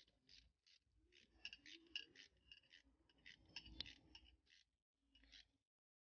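Faint ratchet wrench clicking in short runs of quick clicks as the gear shifter base-plate screws are tightened, with a light knock near the middle.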